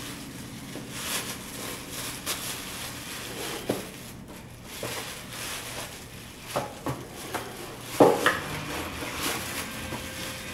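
Tissue paper rustling as it is pulled from a cardboard shoebox, with the box knocking and scraping on a tile floor: several sharp knocks in the second half, the loudest about eight seconds in.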